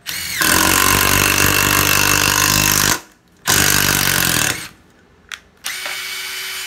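Makita 136 brushless cordless impact driver driving a screw into wood: a loud rattling run of about three seconds with the motor pitch slowly falling under load, a second shorter run a moment later, then near the end it runs again more lightly at a steady speed.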